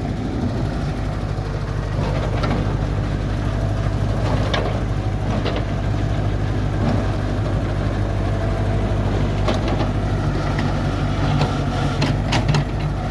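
Heavy-equipment diesel engine running steadily, with a few sharp metallic clanks every few seconds.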